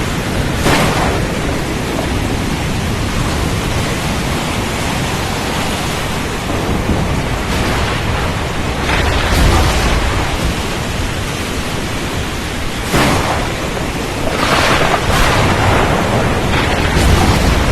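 Storm at sea: a steady, loud rush of wind, rain and waves, with louder surges swelling up every few seconds.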